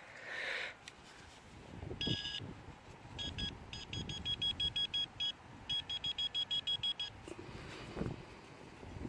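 Metal detector's electronic beeping as it checks a dug plug of soil for the target: a short steady tone, then runs of rapid beeps about six a second. Wind noise and a few low thuds are underneath.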